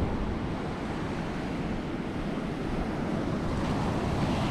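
Surf breaking and washing up onto a shelly beach, with wind buffeting the microphone.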